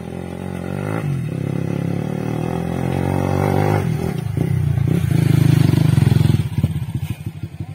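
Dirt bike engine revving as the bike comes up the track, growing louder and loudest as it passes close by. Near the end it drops back to a low, pulsing putter at low revs.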